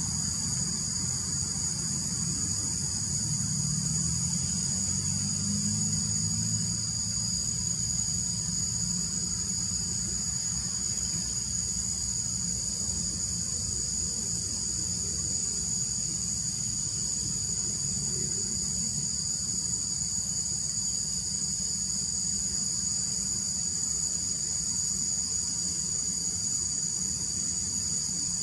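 Steady chorus of insects, such as crickets, trilling without a break at two high pitches. A low rumble sits underneath and is strongest in the first several seconds.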